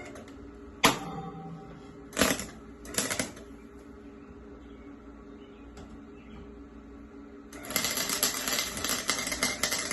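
A few sharp knocks early on, then, from about three-quarters of the way through, a welding arc crackling and sputtering steadily as a weld is laid on the mower build.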